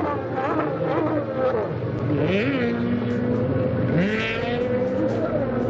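Racing jet ski (personal watercraft) engines running hard, the engine note rising sharply about two seconds in and again about four seconds in as riders accelerate out of the turns.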